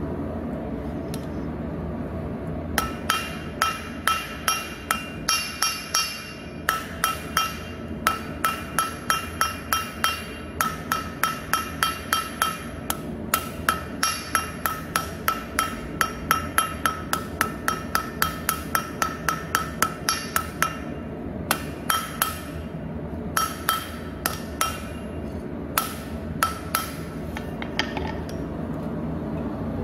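Hammer blows on red-hot steel on an anvil, drawing a jackhammer bit out to a point. The blows come in runs of about two a second, each with a short metallic ring, with a few brief pauses between runs. A steady low hum sits underneath.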